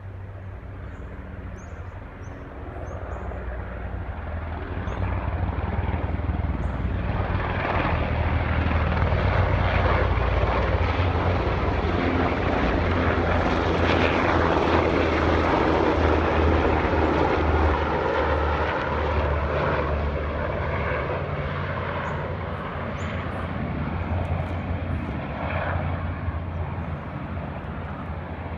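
A close formation of UH-60 Black Hawk helicopters on a fast, low approach: rotor and turbine noise. It grows louder over the first several seconds, is loudest around the middle, then slowly fades as they pass.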